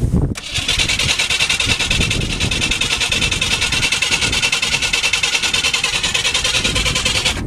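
Ford Taurus engine cranking on the starter without firing, a fast, even chugging that stops abruptly near the end. It is a no-start from a dead fuel pump that is not delivering fuel.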